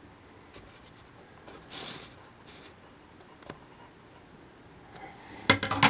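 Parts of an opened electronics box being handled: a few faint clicks and a soft rustle, then a loud burst of clattering clicks near the end.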